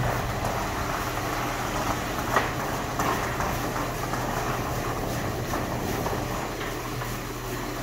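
A truck engine running steadily, an even low hum with a few faint clicks.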